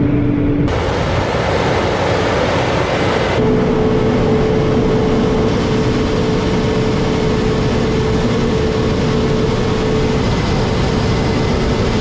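New Holland combine harvester running under load while harvesting wheat and unloading grain through its auger into a grain cart, heard from outside the cab as a loud, steady machine noise. A steady hum sets in about three seconds in.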